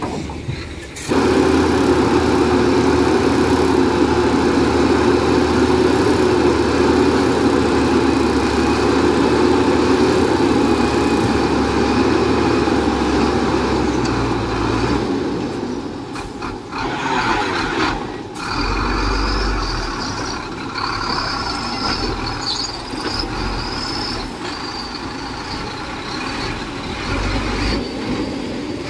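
Heavy diesel construction machinery working, its engine running loud and steady from about a second in. In the second half the sound turns rougher and a high thin whine comes and goes over it.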